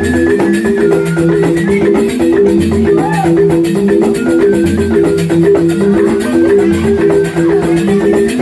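Balinese rindik, a bamboo xylophone ensemble, playing fast, steady interlocking patterns of short struck notes. Occasional deep bass notes sound beneath them, and a thin, held high melody line sounds above.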